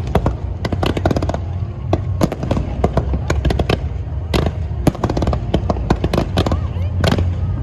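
Fireworks display: rapid, irregular bangs and crackles, several a second, over a steady low rumble.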